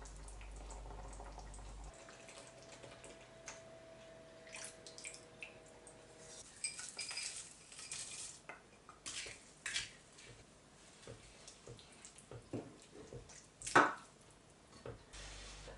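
Wooden spoon stirring and scraping in a nonstick frying pan, with light clinks from a small glass bowl as peas are tipped in. A run of short, uneven clicks and knocks, the loudest a single sharp knock near the end. A faint steady tone sounds for a few seconds before the stirring starts.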